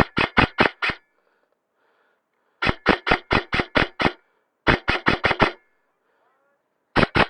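Airsoft electric rifle, a Falkor Blitz with a high-speed custom gearbox, firing strings of rapid shots at about five a second: four strings with short pauses between, the last near the end.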